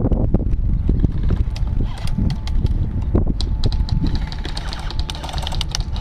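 Wind rumbling on the microphone, with many sharp clicks and taps scattered through it.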